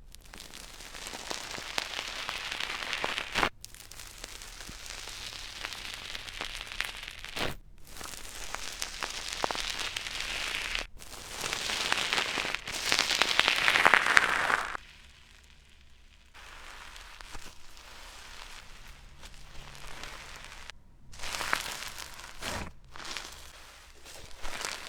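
Slime being squeezed and worked by hand, giving a dense crackling and popping of small air bubbles. It breaks off abruptly several times and is loudest a little past the middle.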